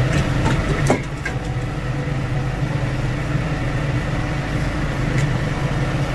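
Ice cubes clinking and water sloshing in a stainless steel bowl as a hand reaches into an ice bath for blanched fish pieces, a few sharp knocks within the first second or so. A steady low hum runs underneath throughout.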